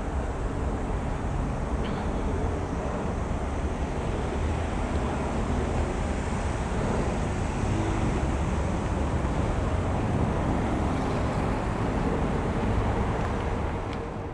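Wind buffeting an outdoor microphone: a steady, rumbling rush that fades out at the very end.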